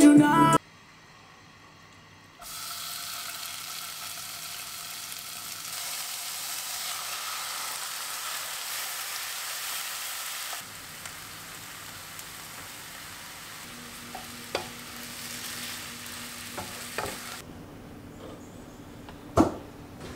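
Beef and chopped kimchi sizzling as they are stir-fried in a frying pan and stirred with a wooden spatula. The sizzling starts a couple of seconds in, softens about halfway through, and dies down near the end, where there is one sharp click.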